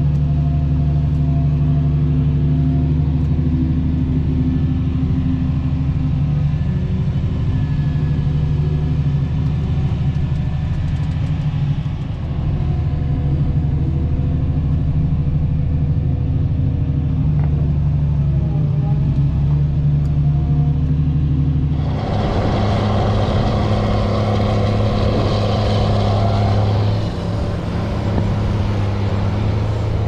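John Deere tractor engine running steadily under load, heard from inside its cab as it pushes corn silage on the pile with a front blade. About 22 seconds in the sound cuts to a louder, rougher engine of a Case IH Quadtrac tracked tractor working the silage pile close by.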